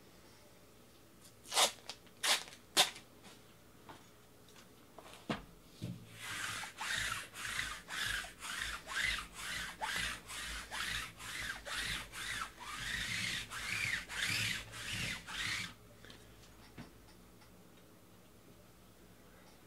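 Three sharp knocks as cardboard card boxes are set down and shifted on a table, then about ten seconds of rhythmic rubbing, roughly two and a half strokes a second, that stops suddenly.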